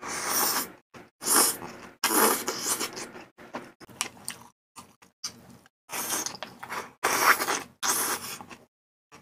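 Slurping and chewing a spicy malatang mouthful, with noodles and soup, from a small bowl held at the mouth. There are several sharp slurps with short silent gaps between them, and the longest and loudest comes near the end.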